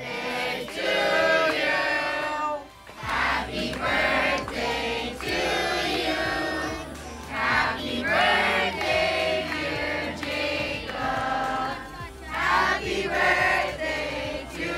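A group of adults and children singing together, with a low steady hum underneath from about three seconds in.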